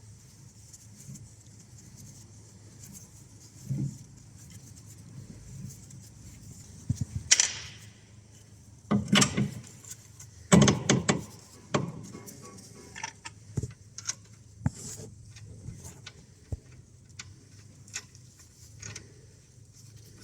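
Scattered metal clinks and knocks of hand tools and steering parts as a new track rod end is fitted, with the loudest clatter about seven, nine and eleven seconds in.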